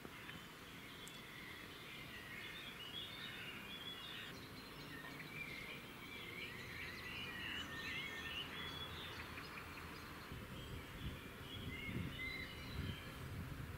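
Small birds chirping and singing, busiest in the middle, over a low steady background rumble of outdoor noise.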